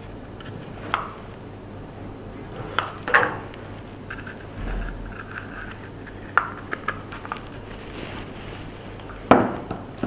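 Light plastic clicks and knocks from handling a small portable humidifier: cotton wicks pushed into its top and the top fitted onto the plastic water tank. A handful of separate taps with light rustling between, the loudest near the end.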